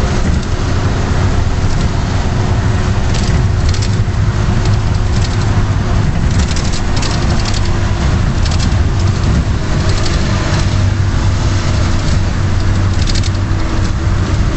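Strong wind blowing hard: a loud, steady rush with heavy low rumble and buffeting, mixed with a car's running and road noise.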